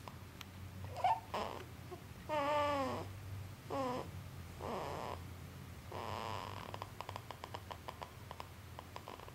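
A sleeping baby snoring: about five rough snoring breaths. Two of them, a few seconds in, carry a wavering, whiny pitch. A run of faint quick clicks follows near the end.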